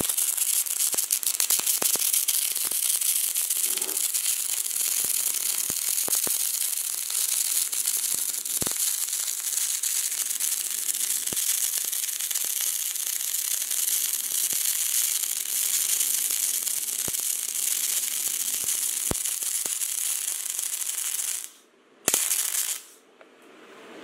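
MIG welding arc burning on ER70S-6 solid steel wire: a steady crackling hiss with scattered sharp pops. It stops about 21 seconds in, then flares again briefly for about a second.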